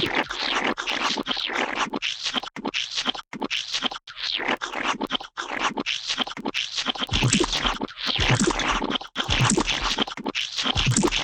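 A rapid string of gooey, wet splat and squelch sound effects, one after another, with frequent abrupt cuts and brief gaps between them.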